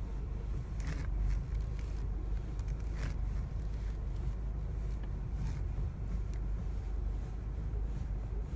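Abnormal noise from a car's steering: three short creaks about two seconds apart over the car's steady low rumble.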